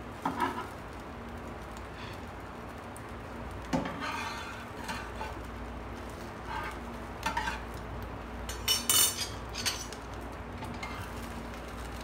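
Slotted metal spatula scraping and clinking against a non-stick frying pan as an omelette is cut and turned, in scattered short strokes, the loudest cluster about nine seconds in.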